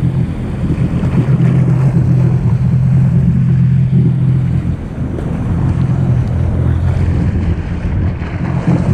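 A 2018 Sea-Doo RXP-X 300 jet ski, fitted with an aftermarket free-flow exhaust, running at a steady cruise over the ocean, its engine hum overlaid with wind buffeting the microphone and water rushing past. The engine eases off briefly about five seconds in.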